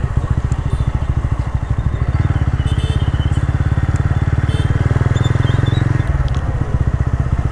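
TVS Ronin 225's single-cylinder engine running under way with a steady, fast exhaust pulse. The pulse dips briefly about six seconds in, then picks up again.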